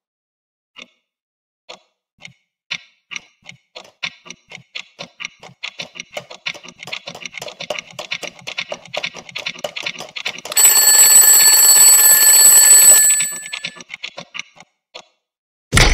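Alarm clock sound effect: ticking that starts slow and speeds up steadily, then a loud bell ringing for about three seconds that dies away. A few slower ticks follow, and near the end there is a sharp crash of the clock breaking.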